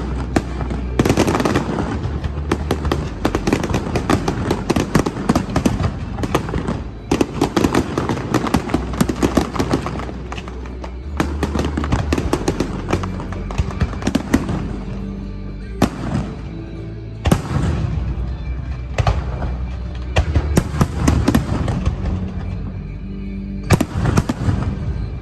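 Aerial fireworks bursting and crackling in quick succession. Dense crackling fills the first half, then comes a series of separate loud bangs, one of the sharpest near the end.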